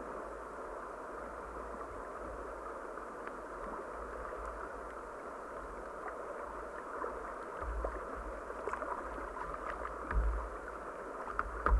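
Steady rush of flowing river water around a kayak. In the second half come a few small splashes and some low thumps.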